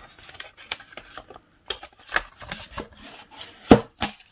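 A cardboard slipcover being slid back over a plastic Blu-ray case: cardboard rubbing and scraping against plastic, with light clicks and taps. A sharp click comes near the end, followed by another.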